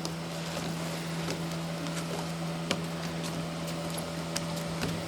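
A steady low hum with scattered faint clicks and knocks.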